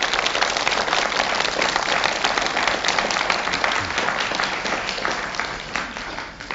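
Studio audience applauding, loudest at the start and then slowly dying away.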